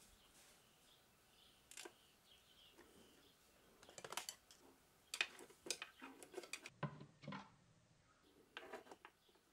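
Light clicks and scrapes of a screwdriver working a screw into the plastic base of a soup maker, coming in short scattered clusters, busiest in the middle.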